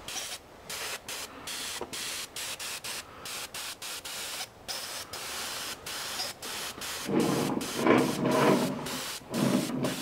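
Airbrush spraying paint with a hiss, cut off and restarted many times in quick short bursts. From about seven seconds in, a louder steady hum joins it.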